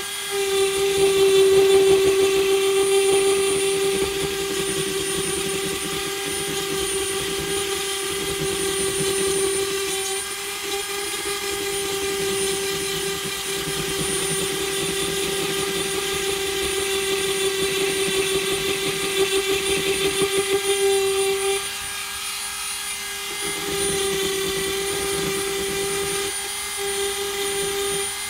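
Dremel rotary tool running at high speed with a steady whine while its engraving bit cuts into dry, weathered wood. The whine drops away briefly twice near the end.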